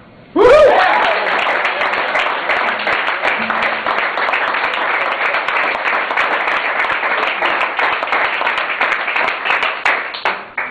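Small audience applauding at the end of a song. It opens with a sudden loud whoop, then runs as steady hand-clapping and fades out near the end.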